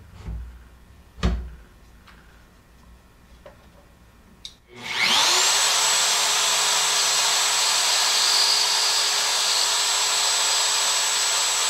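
Two knocks in the first second and a half, the second sharp and the loudest sound here, then a click. About five seconds in a DeWalt plunge router switches on, spins up within half a second and runs steadily at full speed with a high whine, making a keyhole cut in the wood.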